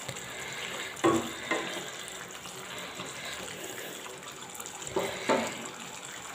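Masala gravy simmering in a nonstick wok with a steady soft sizzle, while a wooden spatula stirs the cauliflower; short knocks come in two pairs, about a second in and again about five seconds in.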